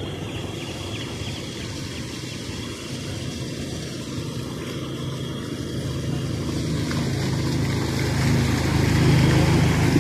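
Small motorcycle engine running as it comes through floodwater, growing louder toward the end as it passes close, with water splashing around its wheels.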